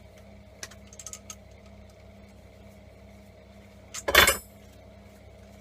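Light clicks of metal welding-torch parts being handled, then one loud, brief metallic clatter with a short ring about four seconds in. A faint steady hum runs underneath.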